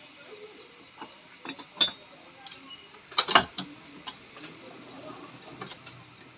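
Scattered metal clicks and knocks of tools and parts being handled while a motorcycle monoshock is taken apart, with the sharpest knocks a little under two seconds in and a quick cluster around three and a half seconds in.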